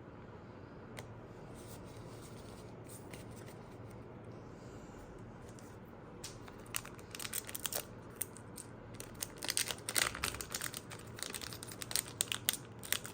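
Foil booster-pack wrapper being handled, torn open and crinkled: a few faint rustles at first, then from about halfway in a dense run of sharp crinkling crackles.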